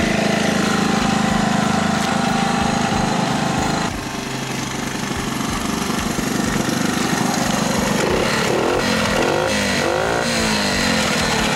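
Honda ATC110 three-wheeler's small single-cylinder four-stroke engine running steadily, with its pitch rising and falling a few times near the end. The engine smokes badly, which the owner puts down to a broken piston ring.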